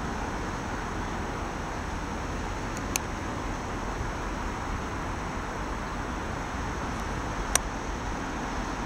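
Steady outdoor rumble of distant traffic and trains, broken by two short sharp clicks.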